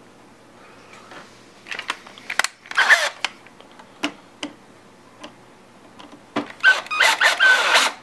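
Powered Phillips screwdriver driving the screw that holds a replacement RCA board into a Technics 1200 turntable: a short run about three seconds in, then a longer run with a steady motor whine near the end, between small clicks from handling parts and cables.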